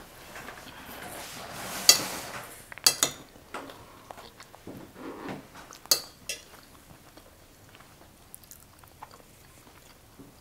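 Spoons clinking and scraping against plates, with a few sharp clinks in the first six seconds and only faint small sounds after.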